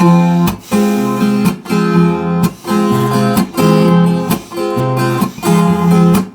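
Acoustic guitar strumming chords in a steady rhythm as an instrumental intro, each chord broken off briefly about once a second.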